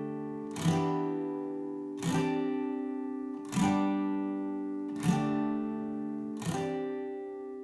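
Background music: an acoustic guitar strumming slow chords, one strum about every second and a half, each chord left to ring and fade.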